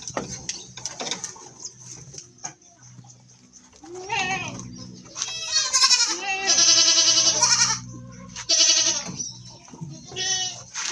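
Goats bleating: a short call about four seconds in, then a long, loud drawn-out bleat, followed by two shorter calls near the end.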